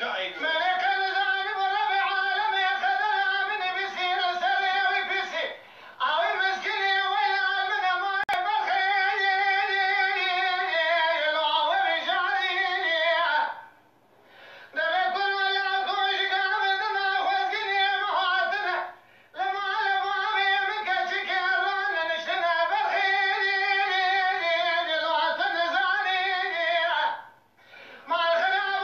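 A man singing Kurdish dengbêj song unaccompanied, in long, high, ornamented phrases held on wavering notes. There are short breaks for breath about six, fourteen, nineteen and twenty-eight seconds in.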